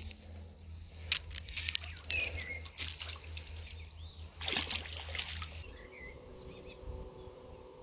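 Outdoor ambience of handling and rustling noises with several short sharp bursts, the loudest a little past halfway, over a steady low rumble that stops about three-quarters of the way through; a few faint bird chirps.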